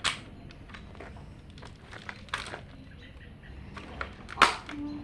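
Scattered clicks and knocks from handling a multi-pump BB gun, with two louder knocks, one just after the start and one about four and a half seconds in.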